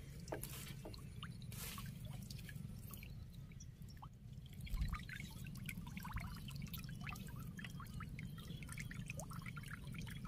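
Water dripping and splashing: many small irregular drips over a steady low rumble, with a dull thump about five seconds in.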